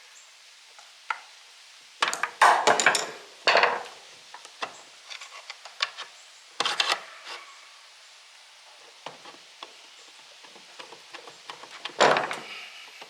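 Hand tools knocking and scraping on metal machine parts while prying at a shaft whose bearing is seized. Loud clusters of clanks and scrapes come about two seconds in, around three and a half and six and a half seconds, and near the end, with small ticks between.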